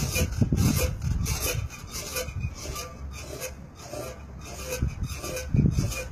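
Springpole creaking and rubbing against its wooden post in a rhythm of short scraping strokes, about two a second, each with a brief squeak, as a dog hangs on the tug and jerks it. Heavier low rumbling in the first second and again near the end.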